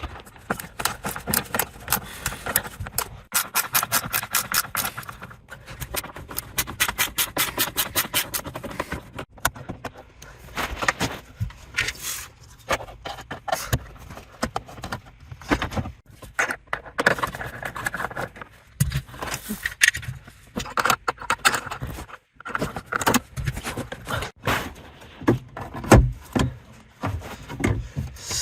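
A Torx screwdriver backs out the small T15 screws holding an Audi MMI display. There are runs of rapid, evenly spaced clicks, with scraping and rattling of small metal parts in between.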